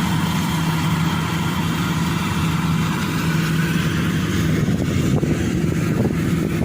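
Rice combine harvester engine running steadily, an even, constant hum.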